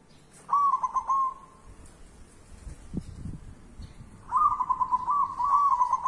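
Zebra dove (perkutut) cooing: two phrases of quick staccato notes near the same pitch, the second longer and ending in a drawn-out note. A low bump falls between the phrases.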